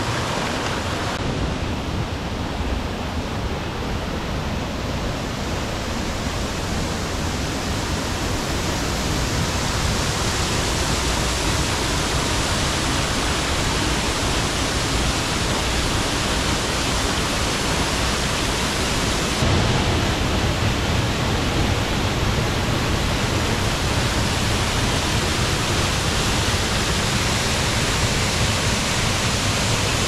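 Steady rush of a waterfall and the stream running over the rocks below it, louder from about ten seconds in.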